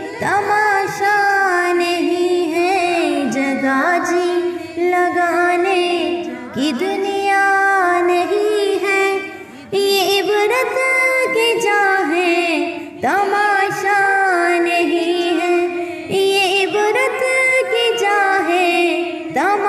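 A naat, an Islamic devotional song in Urdu, sung by a high voice with long held notes and sliding pitch.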